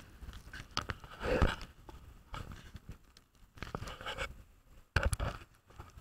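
Handling noise from a small camera being moved and covered close to its microphone: irregular rustling, scraping and knocks in a handful of separate bursts.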